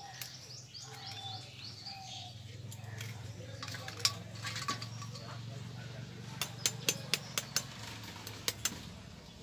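Eggs being cracked by tapping them with a steel spoon: sharp little clicks in short runs, a few about three and a half seconds in, a quick run of several between six and seven and a half seconds, and a couple more near the end. Birds chirp over a low steady hum.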